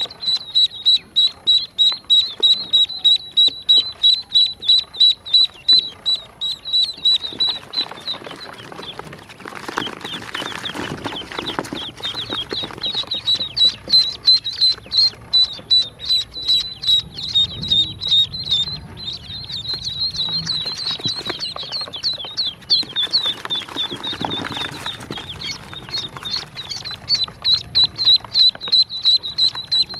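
Newly hatched yellow ducklings peeping: a fast, even run of high peeps, about three a second, easing off briefly about eight seconds in and returning. Rustling and scuffling noise comes in around ten seconds in and again near twenty-four seconds.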